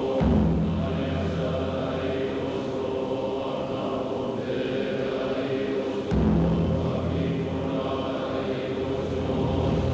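Zen Buddhist monks chanting in unison on sustained pitches. A deeper, louder layer of chant comes in abruptly near the start, drops out, and comes in again about six seconds in.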